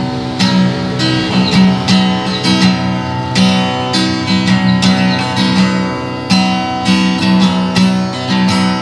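Background music: an acoustic guitar played on its own, picked and strummed at a steady, even pace.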